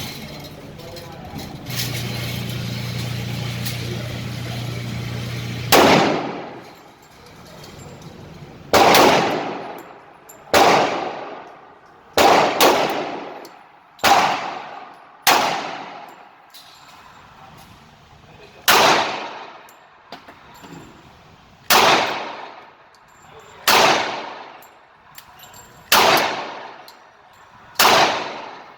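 A steady low hum for about four seconds, then a Glock 21 .45 ACP pistol fired in slow, deliberate single shots: about a dozen loud reports with a reverberant echo, mostly 1.5 to 3 seconds apart, two in quick succession near the middle.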